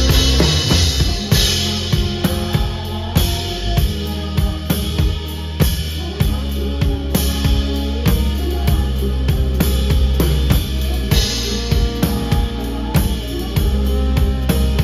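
Drum kit played with sticks, loud and close: kick, snare and cymbals keeping a steady beat over a live band with an upright double bass.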